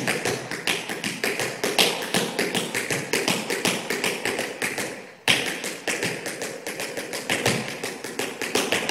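Tap shoes striking a hard studio floor in quick, rhythmic runs of taps, about five or six a second: a tap dancer's shuffle-change combination ending in ball changes. The taps stop briefly just before five seconds in, then resume.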